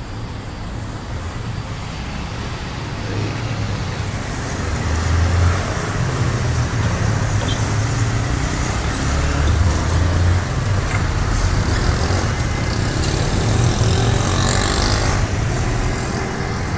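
Street traffic: a motor vehicle's engine rumble and road noise, growing louder about four seconds in and staying loud.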